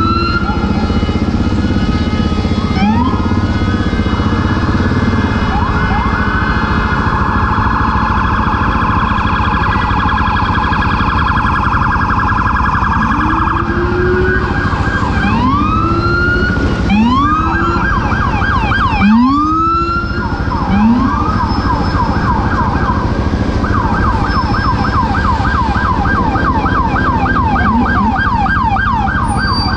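Emergency vehicle sirens sounding over a steady low rumble of engines and traffic. They switch between slow rising wails and a rapid yelp, with a string of short rising whoops in the middle.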